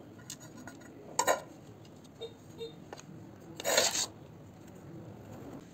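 Metal kitchenware handled on a counter: a stainless steel plate clatters about a second in, two light clinks ring briefly, then a short, louder scrape comes near four seconds in.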